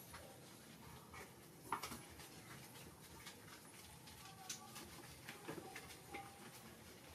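Quiet scrubbing as hands lather shampoo into a baby macaque's wet fur. A few short, soft squeaks from the monkey come through, the sharpest just under two seconds in and several more between about four and six seconds.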